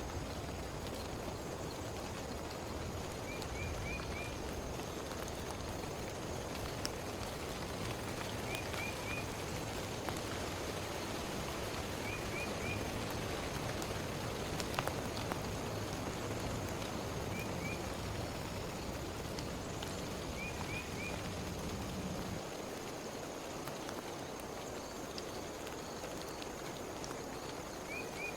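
Steady heavy rain with an even hiss. A small creature calls over it in short high chirps, two or three at a time, every few seconds. A low rumble under the rain stops suddenly about three-quarters of the way through.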